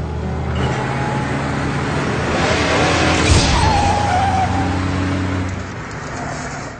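Car sound effects in a cartoon soundtrack: a car running with a steady low hum, swelling into a skid with a brief tyre squeal about three seconds in, then fading near the end.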